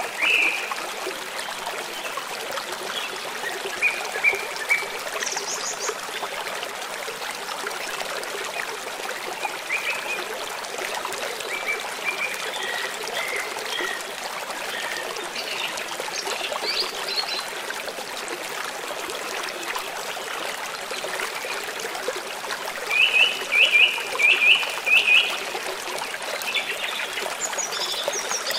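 A stream running steadily, with birds singing over it in scattered short high notes, the loudest a quick run of five or six notes near the end.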